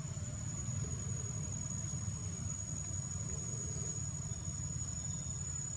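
Steady, high-pitched insect chorus, one unbroken shrill tone, over a steady low rumbling noise.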